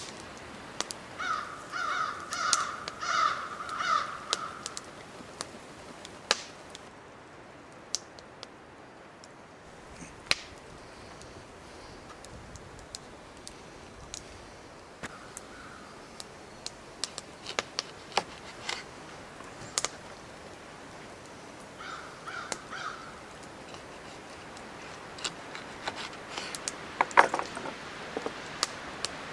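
A bird calling outdoors: a run of about five short, repeated calls a second or so in, then fainter pairs of calls midway and later on. Between the calls come scattered clicks and taps of a knife and hands working on a wooden cutting board, with a sharp knock near the end.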